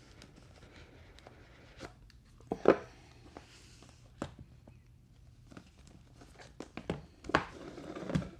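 Handling and opening of a smartphone's cardboard retail box: scattered light taps and clicks, two louder knocks about a third of the way in and near the end, and a brief rustle and tear of packaging after the second.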